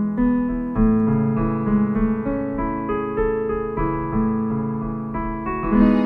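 Piano music, single notes and chords struck about every half second.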